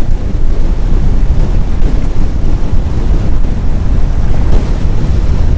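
Strong wind buffeting the microphone in a loud, steady rumble, with choppy sea washing against a small open boat.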